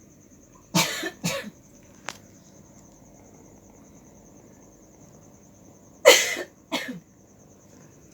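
Two pairs of short, harsh coughs, the second pair about five seconds after the first, over a steady high insect trill.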